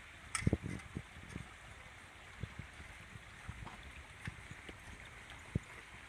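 Footsteps on the metal grating deck of a suspension footbridge: dull thuds at an uneven walking pace, with a cluster of heavier steps and a sharp metallic click about half a second in.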